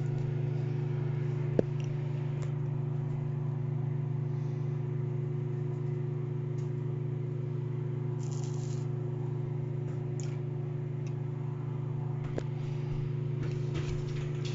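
A steady low hum, with one sharp tap about a second and a half in, and light handling clicks and rustles later on.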